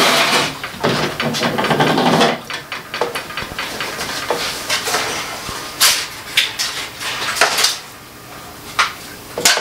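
Hard objects being handled: clattering and scraping for the first two seconds, then scattered knocks and clicks.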